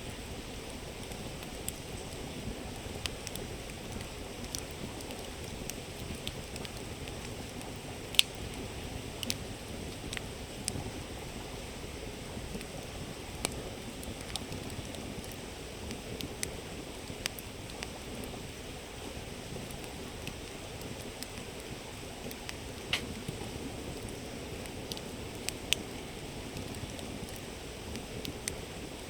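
Wood campfire crackling, sharp pops scattered irregularly with the loudest about eight seconds in, over the steady sound of a flowing river.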